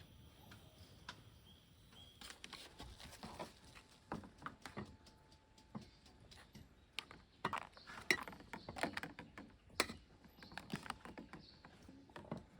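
Cookware and utensils being handled at a camp table: irregular light clicks, taps and knocks, starting about two seconds in and growing sharper toward the middle.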